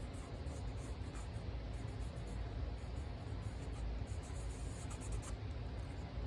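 Light, steady scratchy rubbing on paper as green colour is worked onto the edge of a paper piece.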